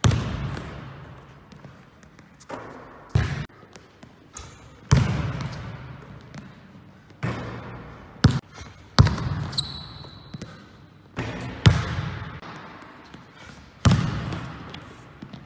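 Basketball bounced hard on a gym floor during dribbling drills, about ten sharp smacks at uneven spacing, each echoing and dying away slowly in the large hall. A brief high squeak about ten seconds in.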